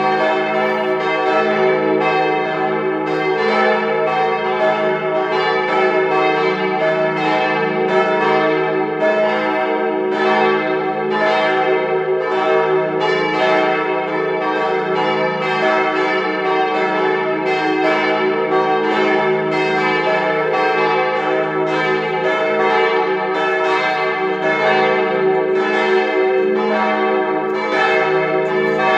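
Church bells ringing together as a partial peal (Teilgeläut), several bells swinging so that their strokes overlap in a continuous, irregular stream over a steady lasting hum.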